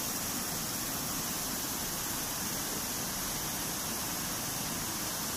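Steady rushing of a river's flowing water, an even noise that does not change.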